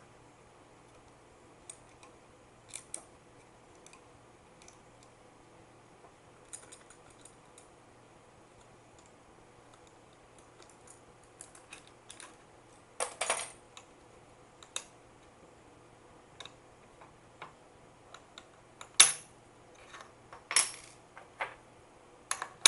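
Small metal parts clicking and clinking as a metal drilling fixture is handled and taken apart on a wooden bench: scattered light ticks, with a few louder clinks in the second half.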